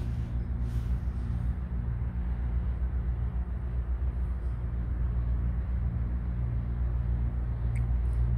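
A steady low mechanical hum with a rumble underneath, even in pitch throughout.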